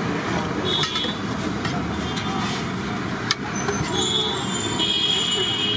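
Traffic running steadily, with voices in the background. A steel serving spoon scrapes and clinks in a large aluminium biryani pot, with one sharp clink about three seconds in.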